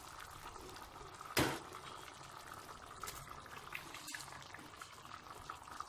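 Pot of yam porridge bubbling faintly and steadily as it cooks, with one short knock about a second and a half in and a few light clicks after.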